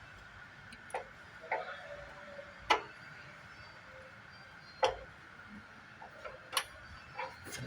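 Irregular sharp clicks and taps, about six spread over several seconds, from metal parts and hand tools knocking as a Honda Civic FD clutch master cylinder is worked into place by hand.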